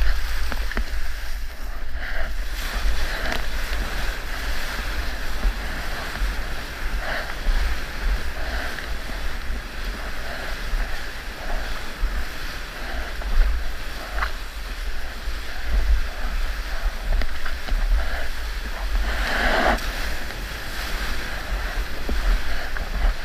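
Water rushing and splashing past an 8 ft single-fin longboard riding a small breaking wave, with the whitewater hissing alongside and a steady low rumble of wind buffeting the GoPro microphone. A louder splash of whitewater comes a few seconds before the end.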